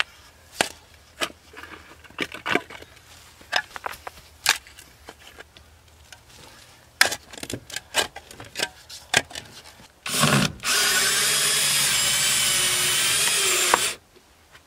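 A steel shovel chops and scrapes into dirt and stones in about a dozen sharp strikes. Then a power drill runs steadily for about three seconds and cuts off.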